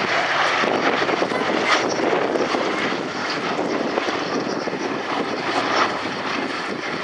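Boeing B-17G Flying Fortress's four Wright R-1820 Cyclone radial piston engines running as the bomber flies past overhead, a steady drone that gets a little quieter from about three seconds in.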